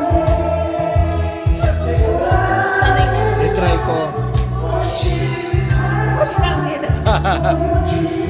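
Music: a song with singing over a heavy, pulsing bass line.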